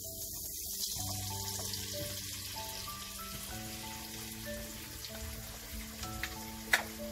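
Onion and tomato base sizzling in a frying pan as canned baked beans are spooned in, with a sharp clink of a metal spoon near the end. Soft background music plays underneath.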